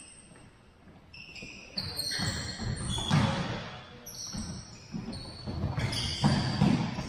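Futsal ball thudding and bouncing on a hardwood gym floor, with short high sneaker squeaks and players' shouts, echoing in the large hall.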